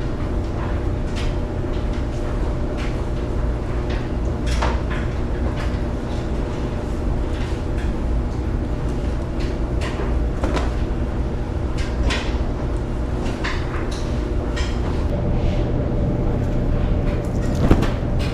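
Steady low machine hum with a few held tones, and scattered light clicks and knocks throughout. A sharper knock comes near the end.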